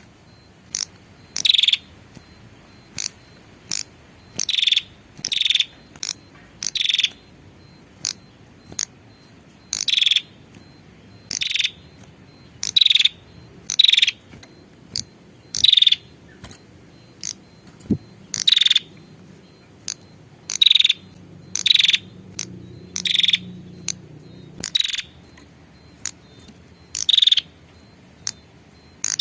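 Female prinia (prenjak) giving harsh, buzzy call notes, short and repeated irregularly, singly and in quick pairs, about one a second: the female's call to a male.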